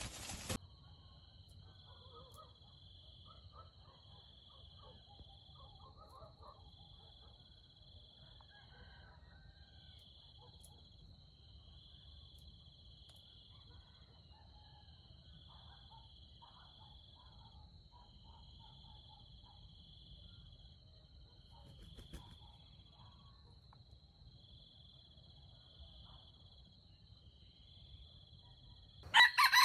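Steady high insect drone with soft chirps pulsing every couple of seconds, and faint scattered bird calls. Near the end a rooster crows loudly.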